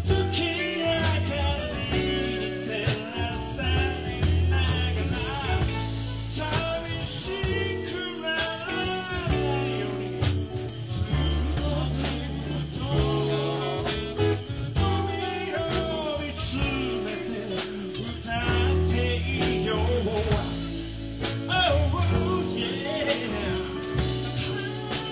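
A live soul band playing with drum kit, bass, guitar and keyboards, a wavering lead melody line riding over a steady beat.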